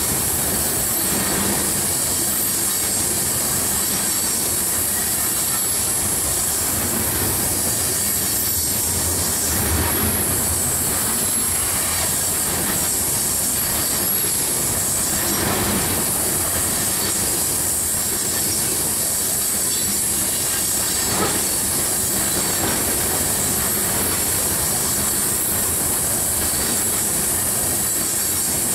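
Coal gondolas of a train rolling past close by on a curve: a steady rumble of steel wheels on rail with a continuous high-pitched squeal, typical of wheel flanges rubbing the curving rail. A few louder clunks come from the wheel trucks, about a third, a half and two thirds of the way through.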